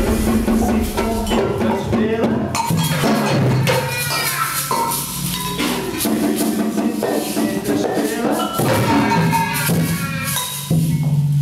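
Young children shaking and striking samba percussion (metal shakers, tambourines, sticks and drums) in a loose, scattered rattle and clatter without a steady beat, with voices calling over it.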